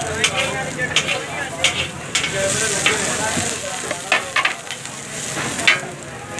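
Shami/egg burger frying on a flat iron griddle: a steady oily sizzle, with sharp clicks and knocks scattered through it.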